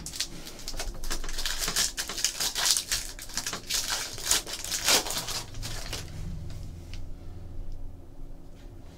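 A foil trading-card pack wrapper being torn open and crinkled in the hands, a dense rapid crackling for about six seconds, then quieter rustling and ticking as the cards are slid out and handled.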